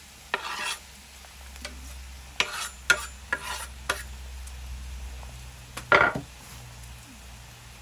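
A knife scrapes chopped garlic and chili off a wooden board into a hot cast-iron wok. A metal spatula then clacks and scrapes against the wok as the meat sizzles, with the loudest scrape about six seconds in.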